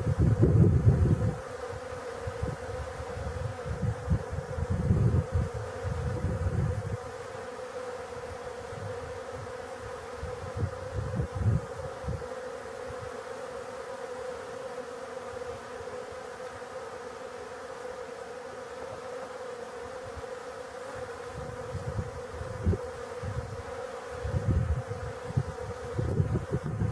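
Many honeybees buzzing around a water feeder: a steady hum of wingbeats, with irregular low rumbles early on and again near the end.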